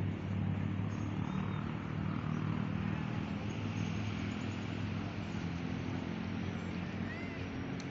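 Steady low engine drone under outdoor noise, with a few faint bird chirps.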